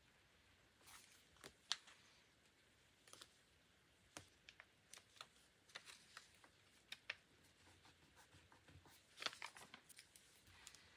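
Faint handling of paper and stationery while decorating a journal: scattered light clicks, taps and short rustles, with a sharper click just under two seconds in and a quick cluster of them about nine seconds in.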